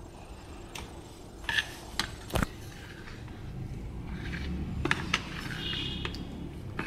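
Steel spoon stirring thick semolina batter in a plastic bowl, with a few sharp clicks and knocks of the spoon against the bowl.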